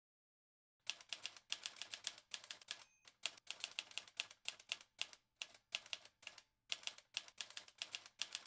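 Manual typewriter keystrokes clacking in quick runs with short pauses, as a title is typed out. A brief ringing tone sounds about three seconds in.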